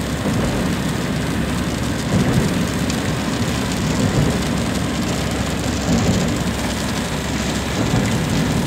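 Steady rumble of engine and road noise inside a moving vehicle's cabin.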